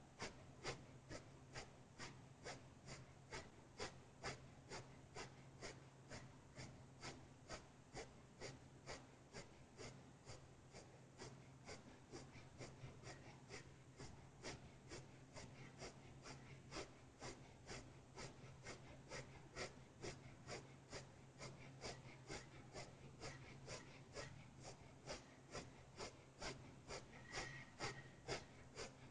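Breath of fire: a person's quick, forceful exhalations through the nose in an even rhythm of about two a second, soft in level.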